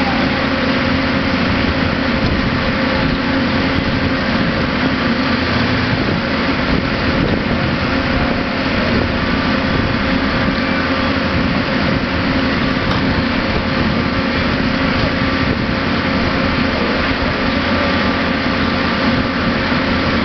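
Holland flash butt rail welding rig running: a steady, loud machine noise with an even hum that carries on without a break.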